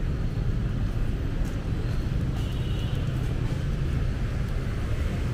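Steady rumble of city traffic with cars passing on a rain-wet street, a continuous low drone with some tyre noise over it.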